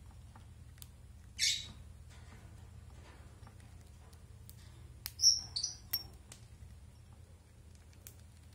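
Peach-faced lovebird eating seeds, with scattered small clicks of beak on seed husks and glass bowl. There is a short harsh burst about a second and a half in and a brief high chirp about five seconds in, the loudest sound.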